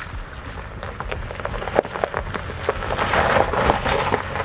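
Tyres of a Toyota RAV4 crunching and crackling slowly over loose gravel and rocks on a dirt trail, growing denser and louder about three seconds in as the SUV comes closer. Under it, its V6 engine runs with a low, steady hum.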